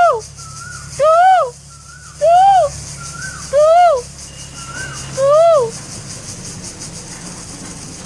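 A cuckoo calling: a loud note that rises and falls, about half a second long, repeated five times roughly every second and a quarter, with a fainter, higher note between the loud ones. The calling stops about five and a half seconds in.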